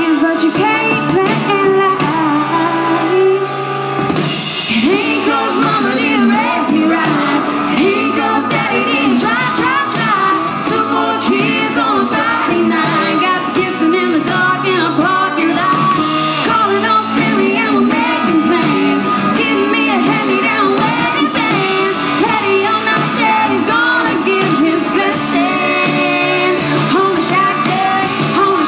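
A woman singing lead into a microphone with a live band, electric guitar accompanying.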